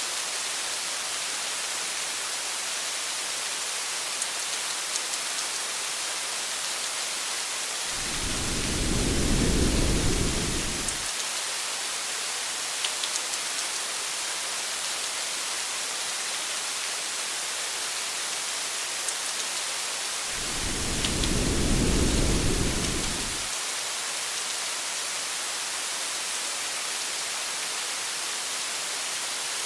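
Steady rain hiss, with two low rumbles of thunder lasting about three seconds each, one around eight seconds in and one around twenty seconds in.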